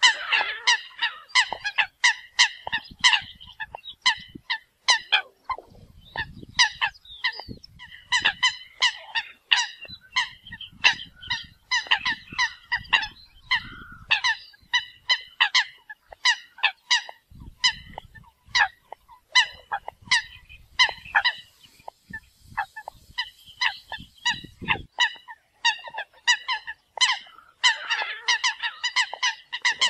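Eurasian coots calling: many short, sharp, honking calls in rapid succession, several birds overlapping, the calls used to draw in a flock.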